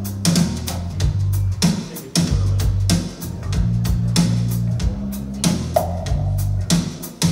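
Recorded band music played back through a pair of Focal Grande Utopia EM EVO loudspeakers: drum hits over a strong, held bass line, with no vocals.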